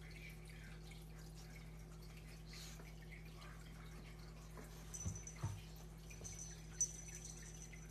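Faint steady room hum, with two soft thumps about five seconds in as the wrestling cats tumble onto the hardwood floor, and a sharp tap a little later.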